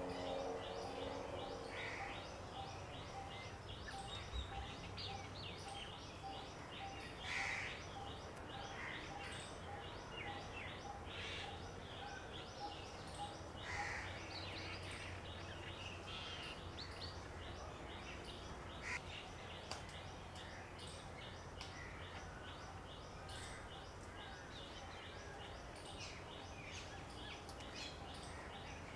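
Small birds chirping in quick, continuous twitters, with a few louder calls scattered through, over a low steady hum.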